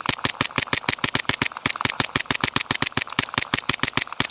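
Suppressed Sig Sauer MPX-K 9mm pistol-caliber carbine fired in a fast, steady string of rapid shots, about eight a second, each a sharp crack.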